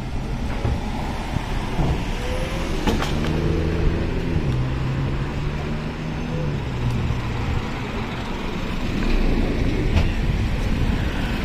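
An engine running close by: a low pitched hum that comes in about two and a half seconds in and fades out by about seven seconds, over steady outdoor background noise, with a sharp click about three seconds in.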